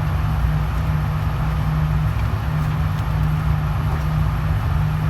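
Steady low rumble with a constant hum and hiss, unchanging throughout; no gunshots.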